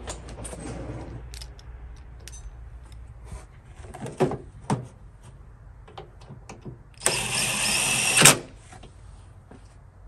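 Cordless drill running for about a second, driving in a bolt that fastens a new power liftgate latch actuator, after a few clicks and two sharper knocks as the part is handled.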